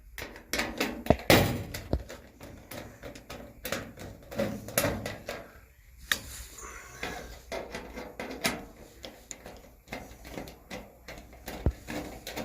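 Irregular clicks, taps and light knocks of sheet metal and screws being handled and fastened as a clothes dryer's back panel is screwed on.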